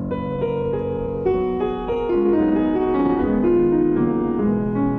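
Background piano music: a melody of single notes moving step by step over sustained chords.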